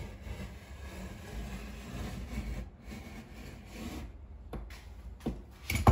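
Utility knife blade drawn along a straightedge, slicing through 3M 2080 gloss vinyl wrap film on a plywood board: a long dry scrape, then a few short knocks, the loudest just before the end.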